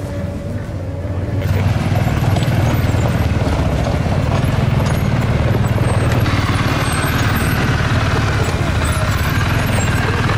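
ATV (quad bike) engine running as it moves, towing a jet ski trailer, getting louder about a second and a half in.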